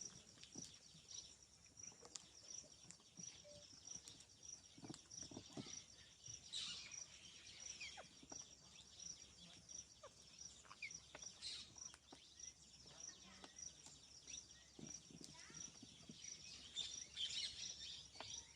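Near silence with faint outdoor ambience: a steady train of thin high chirps pulsing about three times a second, with scattered soft clicks and a few brief high chirps, about a third of the way in, well past halfway, and near the end.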